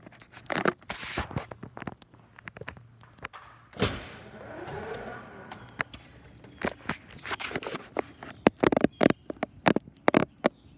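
A series of irregular sharp clicks and knocks, with a louder thump about four seconds in and the clicks coming thicker in the last few seconds.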